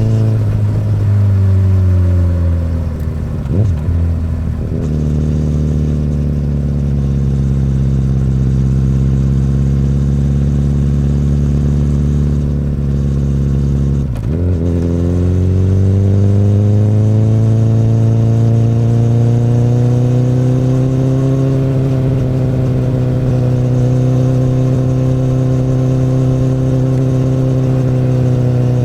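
2008 Honda CBR1000RR's inline-four engine through an Akrapovic exhaust, under way on the road. The engine note falls at the start, breaks briefly about four seconds in and holds steady. It dips sharply at about fourteen seconds, then the revs climb gradually and level off.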